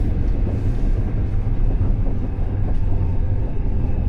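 Passenger train running, a steady low rumble.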